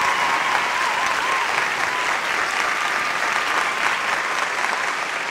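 Audience applause, dense and steady, with a thin wavering whistle running through it.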